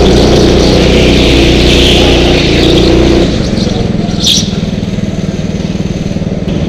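Go-kart engine heard from on board, running hard at speed. About three seconds in the throttle comes off and it drops to a quieter, lower steady note as the kart slows. A short sharp noise comes about a second later.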